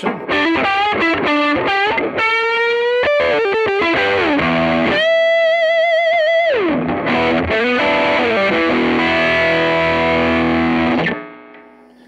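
Electric guitar on its neck P90 pickup, run through a Tube Screamer overdrive, playing a single-note lead: quick notes, a bend upward, then a long held note with vibrato that slides down. The playing stops about eleven seconds in and rings out.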